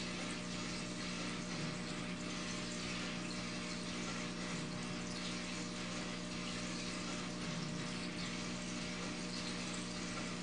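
Small water pump running steadily: a constant low hum over an even, watery hiss.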